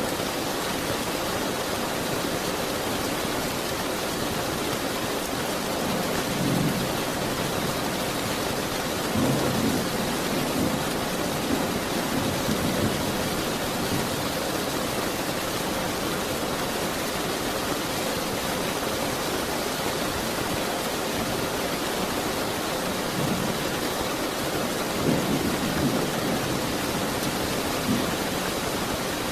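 Steady rain, an even hiss, with several low rumbles of thunder rolling in, a few between about six and thirteen seconds in and again a little before the end.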